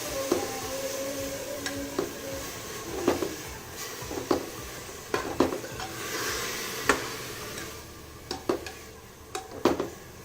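Grated onion frying in hot oil in a pressure cooker pot, sizzling steadily while being stirred; the stirring utensil knocks and scrapes against the metal pot about once a second. The sizzle dies down near the end.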